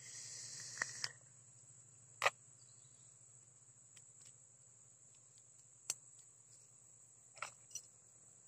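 Steady high-pitched chirring of insects in the pond-side grass, with a brief hiss in the first second and a handful of sharp clicks scattered through.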